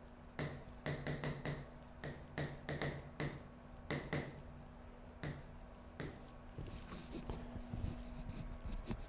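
Chalk writing on a blackboard: a run of short taps and scratches as words are written, thinning out after about six seconds.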